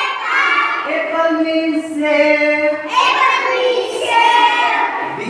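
Young children singing an alphabet song together in chorus.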